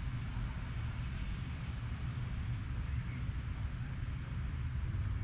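Crickets chirping: a steady, even run of short high chirps at two slightly different pitches, over a constant low rumble.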